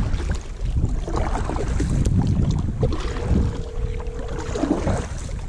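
Kayak paddle strokes dipping and splashing in the water, with wind buffeting the microphone.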